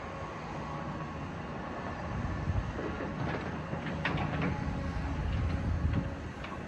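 Heavy demolition machinery working: a low, steady rumble that swells in the middle, broken by several sharp clanks and knocks.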